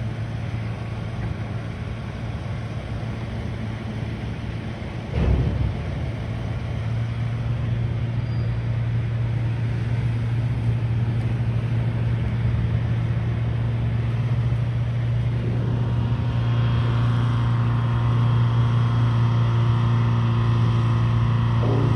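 An engine running with a steady low hum, with a single thump about five seconds in; the sound grows gradually louder and fuller over the last several seconds.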